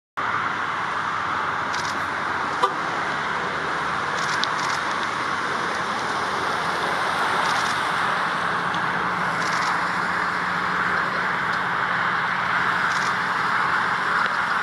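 Steady road traffic noise, an even rushing hiss of passing vehicles, with one sharp click about two and a half seconds in.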